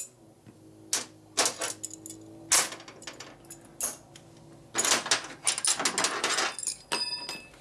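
Loose metal parts and tools clinking and clattering as they are picked up and set down on a workbench: a few separate knocks, then a longer run of clatter, and a short metallic ring near the end.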